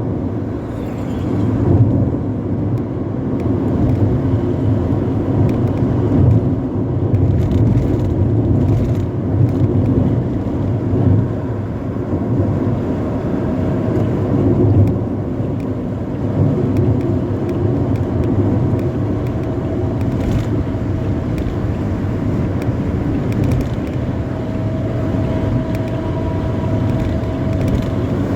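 Intercity bus with a 'ngorok' (snoring) modified exhaust running at speed: a steady, deep, fluttering exhaust rumble mixed with road noise.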